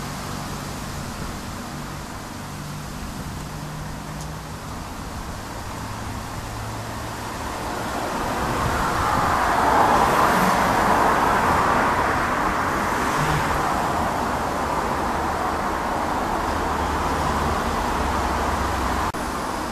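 Steady rushing vehicle noise that swells to a peak about halfway through and stays fairly loud, dipping slightly just before the end.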